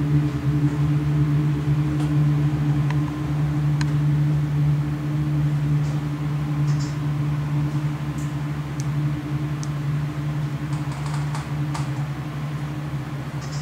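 A steady, low droning hum from the performance soundtrack, slowly fading, with a few faint scattered clicks.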